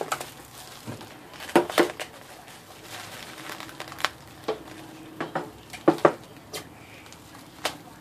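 Bubble wrap and plastic stretch wrap crinkling and crackling as the film is pulled off its hand roll and pressed around the bubble wrap, with sharp, irregular crackles; the loudest come about two seconds and six seconds in.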